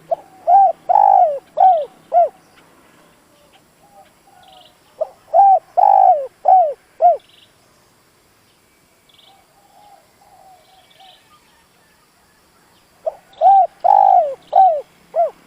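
Spotted dove cooing: three loud phrases of about five arched coo notes each, several seconds apart, with a softer run of low cooing in between. This is the dove's territorial song, the kind used to provoke wild doves.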